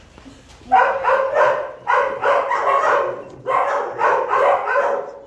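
A dog barking in three quick runs of rapid barks, starting about a second in.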